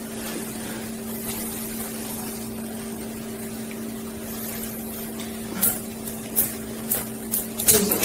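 A steady electrical or mechanical hum with two fixed tones. Several short, light clicks come in the last couple of seconds.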